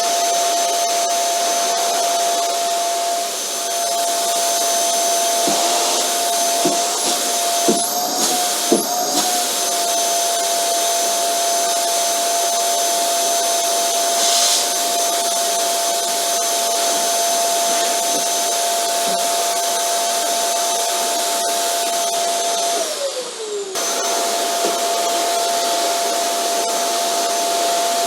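Vacuum cleaner motor running steadily, a rushing airflow with a high whine. A few short knocks and a slight wobble in the whine come around 7 to 9 seconds in. Near the end the whine slides down in pitch and the sound dips briefly, then comes back at full speed.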